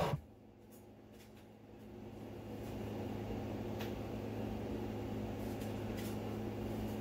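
Steady low hum of a running appliance or motor, swelling up over the first couple of seconds and then holding level, with a few faint clicks.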